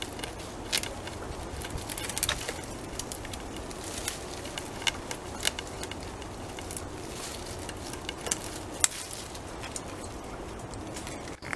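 Beaver gnawing a felled tree trunk, its incisors biting off wood in irregular cracks and scrapes.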